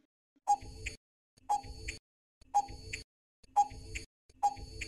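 Countdown timer sound effect: five clock-like ticks about a second apart, marking the time to answer a quiz question.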